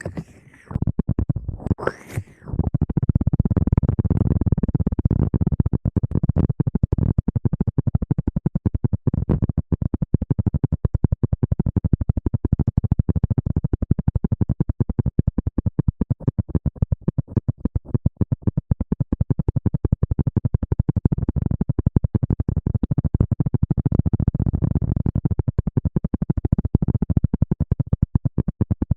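Fast, continuous scratching and rustling rubbed close on the microphone, loud and crackly, after a couple of short swishes at the start.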